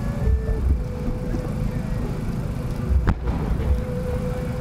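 Fireworks show ambience: a low, steady rumble with a faint high whistle-like tone, broken about three seconds in by one sharp crack as a large aerial shell is fired from its mortar and climbs on its rising tail.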